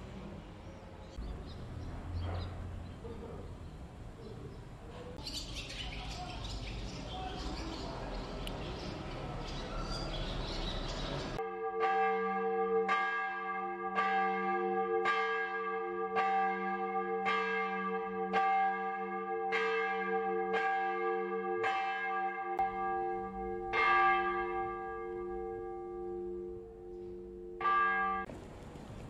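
Faint outdoor background, then a church bell tolling, struck about once a second with its ringing carrying between strokes, beginning about a third of the way in and stopping shortly before the end.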